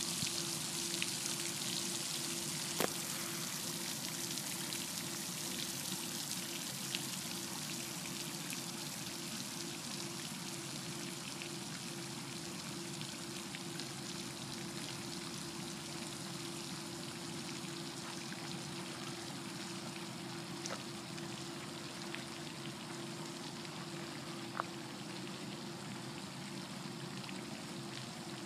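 Steady rushing noise like running water, easing slightly over the first several seconds, with a low steady hum beneath it and a few faint clicks.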